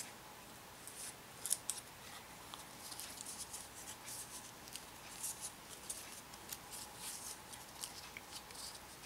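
Rolled paper weaving tubes rustling and crackling faintly as they are handled and braided into a three-strand basket handle: an irregular run of short, crisp crackles.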